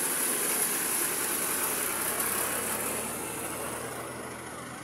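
Motor vehicle engines running close by on a wet road, with a low engine hum under a steady high hiss; the sound fades over the last second or two.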